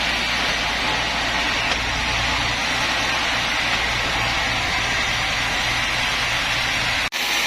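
Sawmill machinery running steadily: an even, loud noise over a low hum. It drops out for an instant near the end.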